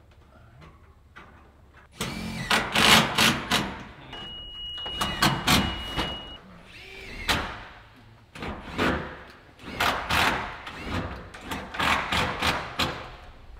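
A long ribbed steel siding panel being handled and stood up against a wall, flexing and rattling in repeated loud wobbles. A steady high beep sounds for about two seconds near the middle.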